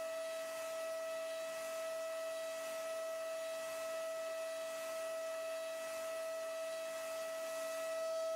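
High-speed CNC milling spindle running a 6 mm DATRON single-flute ball end mill through a finishing pass on a metal part: a steady, high-pitched whine at one unchanging pitch over a faint hiss.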